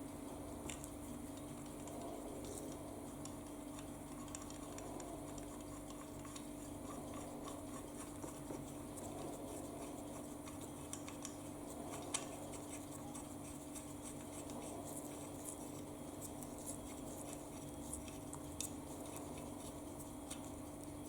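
Light scraping and small metallic clicks of hand work on metal parts, over a steady low hum.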